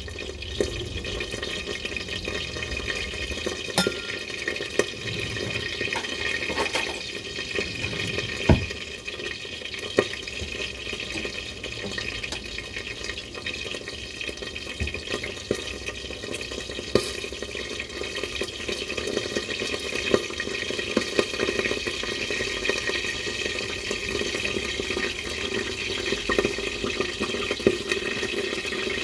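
Chicken patties sizzling in a hot, lidded fry pan: a steady frying hiss with scattered sharp pops and crackles.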